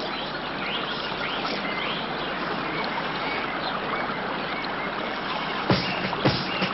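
Running river water with a steady rush and birds chirping over it. Near the end, two sharp drum hits come in as music begins.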